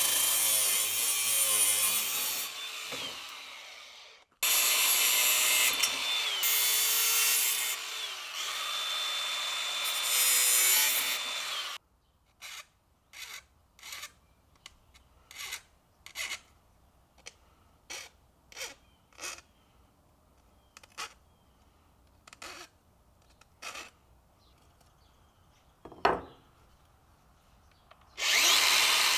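A power saw cutting tile edging trim. It runs and winds down a few seconds in, then starts again and cuts until it stops abruptly. A run of brief, separate sounds and one sharp knock follow, and the saw starts up again near the end.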